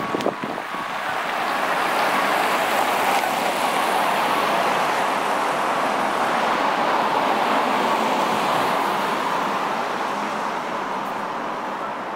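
Road traffic: a vehicle passing close by, its tyre and engine noise swelling over the first couple of seconds and fading slowly over the rest.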